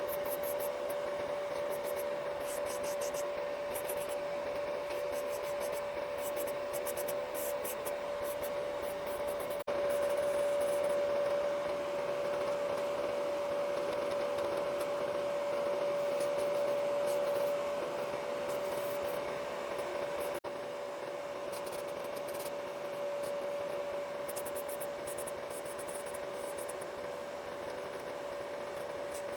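A small electric motor hums steadily while nails are filed or buffed, with bursts of scratchy rubbing strokes.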